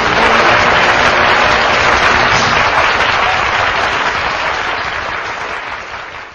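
Studio audience applauding at the end of the song, fading away over the last couple of seconds.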